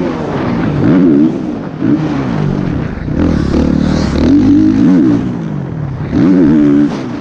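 Motocross bike engine heard from the bike itself, revving up and dropping back again and again, about once a second, as the rider works the throttle between jumps and corners. A steady rush of wind noise runs above it.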